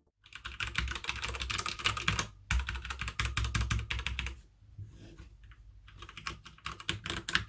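Typing on a HyperX Alloy FPS Pro mechanical keyboard with Cherry MX Red linear switches: a fast, dense run of key clacks, then lighter, sparser keystrokes over the last three seconds.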